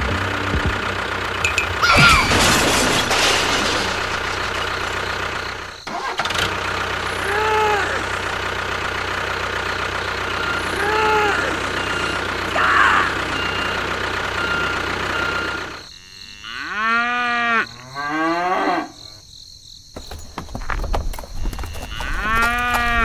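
A tractor engine runs steadily for most of the clip. It stops about three-quarters of the way through, and a cow moos a few times, each moo a long call that rises and then falls in pitch.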